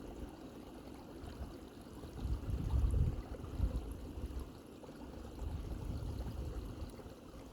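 Jeep crawling over uneven off-camber ground: a low, uneven rumble that swells louder twice, around the middle and again near the end.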